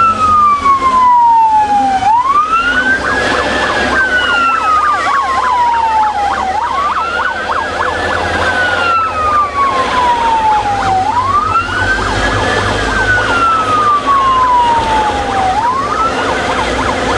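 Vehicle siren wailing in a repeating cycle: the pitch climbs quickly, then slides slowly down, about every four and a half seconds.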